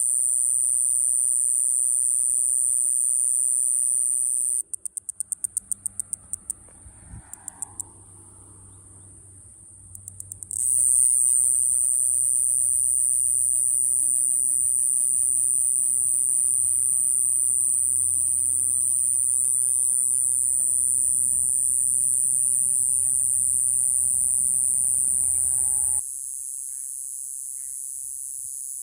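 Iwasaki's grass cicada (Mogannia minuta) singing a continuous, very high-pitched buzz. About five seconds in the song breaks into a run of short clicking pulses and stops, then starts again a few seconds later as a steady buzz. Near the end it drops to a quieter level.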